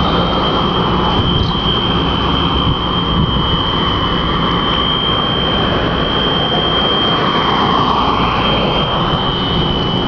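Alarm sounding continuously as one steady high-pitched tone, the kind usually used as a fire alarm, over a loud rushing noise that swells briefly near the end.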